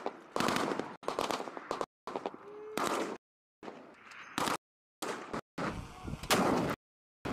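Rifle gunfire, shots and bursts, in a string of short military clips cut together, each breaking off abruptly into silence.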